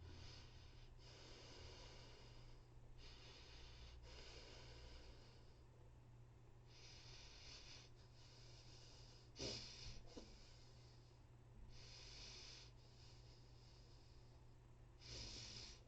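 A man breathing heavily and faintly, catching his breath after stopping a run, the breaths growing further apart as he recovers.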